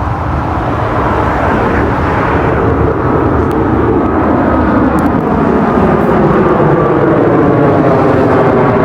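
Airbus A321neo's twin jet engines running at high power, growing steadily louder, with a faint whine that slowly falls in pitch.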